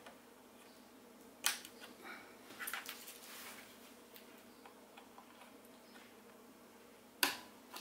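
Scattered light clicks and knocks of hands working on parts of a TV during a power supply board swap, a few seconds apart, with a small cluster about three seconds in and a louder knock near the end.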